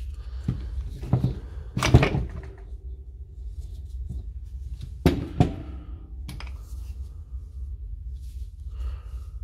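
Clunks and rattles of an impact wrench's metal gear housing and plastic shell parts being handled and set down on a wooden bench, the loudest knocks about two seconds in and again around five seconds in. A steady low hum runs underneath.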